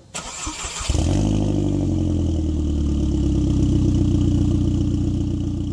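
An engine starts: a short burst of clattery cranking noise, then it catches about a second in and runs with a steady, deep drone.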